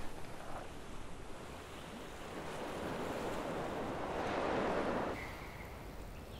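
Sea surf washing, swelling into a louder surge about four to five seconds in that cuts off abruptly.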